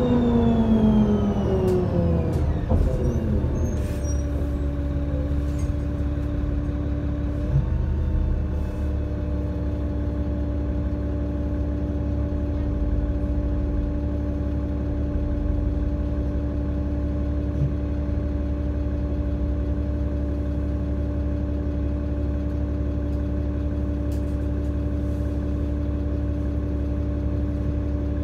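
Heard from inside a 2005 New Flyer D40LF bus, its Cummins ISL diesel and Voith D864.3E transmission give a whine that falls in pitch as the bus slows to a stop over the first few seconds. The engine then idles steadily while the bus stands.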